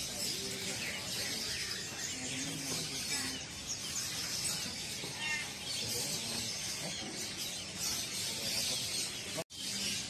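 Many caged small songbirds chirping and twittering at once, a dense chorus of short high calls. The sound cuts out for an instant near the end.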